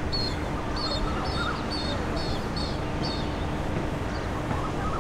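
Birds calling over a steady low rumble: short high chirps repeat about twice a second for the first three seconds, and lower wavering calls come about a second in and again near the end.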